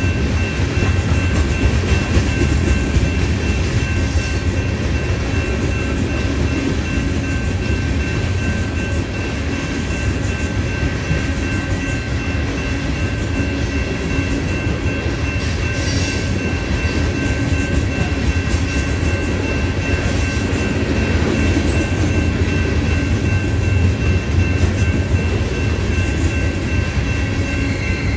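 Freight train of bathtub coal gondolas rolling past: a steady rumble of steel wheels on the rails, with faint clickety-clack over rail joints.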